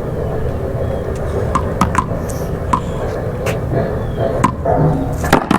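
One-wall paddleball rally: a rubber ball smacked by paddles and rebounding off the wall, a string of sharp smacks at irregular intervals over a steady background.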